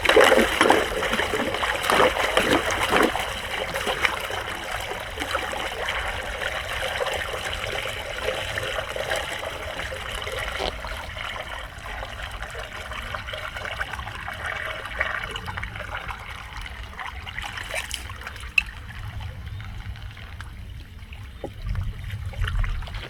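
Floodwater flowing and trickling into a street drain, splashy and loudest in the first few seconds, then easing to a steadier, quieter trickle. A single sharp click comes near the end.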